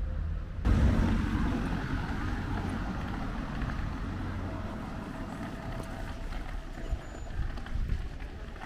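Town street sound: a car driving along the street amid general traffic noise, which starts abruptly just under a second in.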